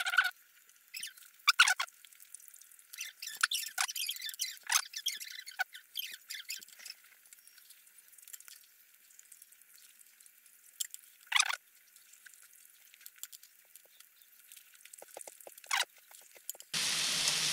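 Scattered light clicks and small mouth sounds of eating: metal chopsticks tapping a grill pan and chewing, thin with no low end. Near the end a loud, steady sizzle of makchang frying in the pan starts abruptly.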